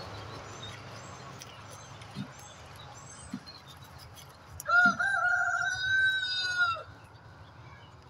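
A rooster crows once: a single call of about two seconds, starting a little past halfway, held fairly level and dropping off at the end. Before it, faint high chirps of a small bird repeat about every half second.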